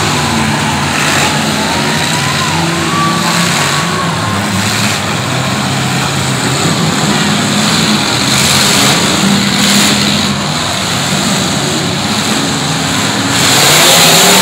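Several demolition derby cars' engines running and revving together, loud and continuous, swelling louder near the end.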